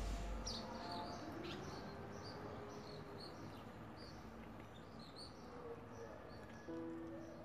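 Small birds chirping faintly, short high chirps repeated every second or so. Held notes of background music fade out at the start and come back near the end.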